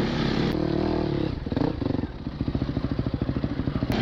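Single-cylinder four-stroke enduro dirt bike engine running steadily under throttle, then dropping about a second in to an even, pulsing idle.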